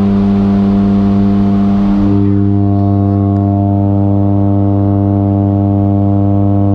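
Steady drone of a turboprop jump plane's engines and propellers heard inside the cabin, a constant deep hum with a rushing noise over it. About two seconds in the rushing eases and the hum's tones come through more cleanly.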